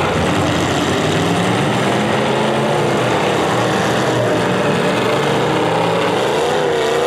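Several demolition derby cars' engines running hard and revving up and down together, a continuous rough engine noise.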